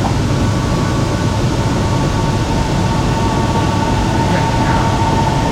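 Shenzhen Metro Line 14 train running along the track: a steady low rumble with a steady high whine.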